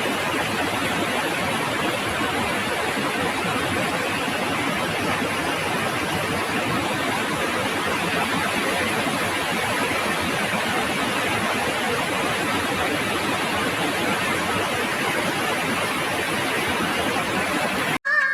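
Steady, even hiss of noise with no pitch or rhythm, cutting off suddenly near the end.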